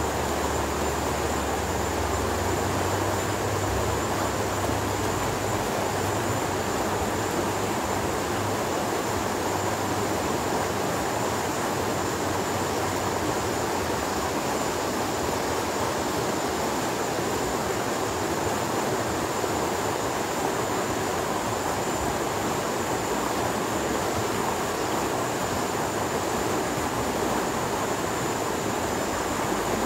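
Shallow river rushing fast over rocks: a steady, even rush of water. A low rumble underneath dies away about four seconds in.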